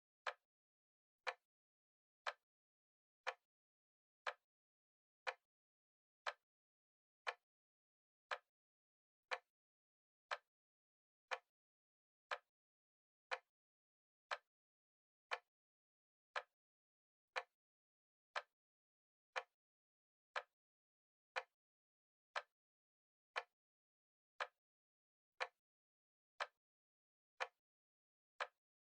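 Clock-style ticking from a countdown timer: one short, sharp tick each second, with silence between ticks.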